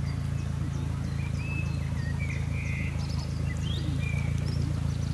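Steady low rumble of a swollen, fast-flowing stream, with a few birds chirping briefly over it.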